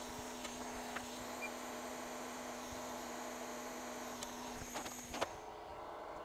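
Steady electric hum with a faint high whine from running microsoldering bench equipment. It cuts off suddenly about five seconds in, just after a few light clicks.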